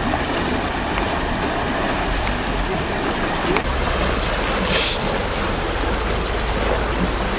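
Small waves washing against a rocky shore, a steady rush of water, with wind rumbling on the microphone and a brief hiss of spray about five seconds in.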